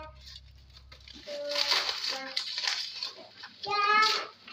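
Plastic packaging crinkling and rustling as it is handled and unwrapped. Several short high-pitched calls sound in the background, the loudest near the end.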